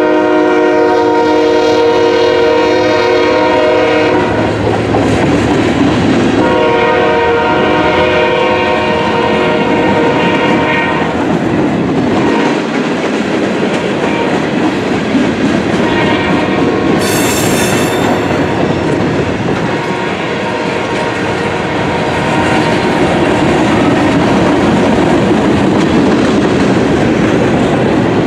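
Norfolk Southern freight train rolling past, its boxcars, tank cars and hoppers making a steady rumble and clatter on the rails. The diesel locomotive's air horn sounds two long blasts, the first ending about four seconds in and the second from about six to eleven seconds in. A brief high squeal comes about seventeen seconds in.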